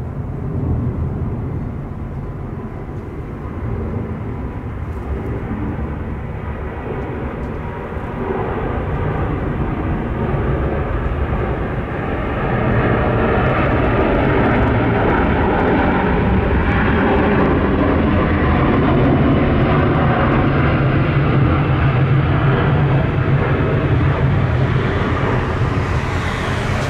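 Airbus A350-900's Rolls-Royce Trent XWB turbofans at takeoff power as the jet climbs out overhead: a steady jet roar that grows louder about halfway through and then holds.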